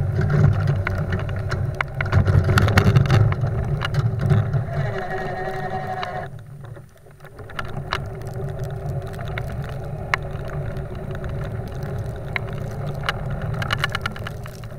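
A golf car with a snow plow blade driving over snow. Its motor runs loudly at first, falls away almost to nothing for about a second halfway through, then picks up again. Frequent short rattles and knocks come from the blade and frame.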